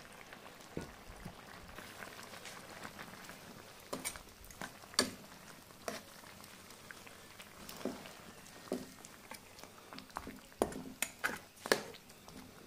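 Pork and banana-stem stew bubbling in a steaming wok: a faint steady simmer with scattered pops, more of them near the end.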